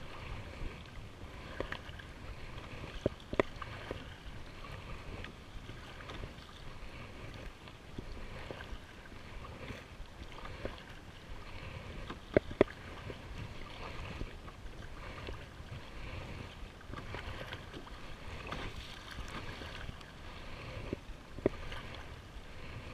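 Water lapping and sloshing against a plastic kayak hull, with low wind rumble on the microphone. A few sharp knocks stand out, the loudest a close pair about twelve seconds in.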